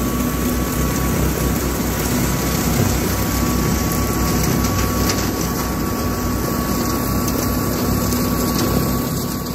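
Kubota L3901 compact tractor's three-cylinder diesel running steadily under load, driving a Land Pride rotary cutter (brush hog) through thick brush.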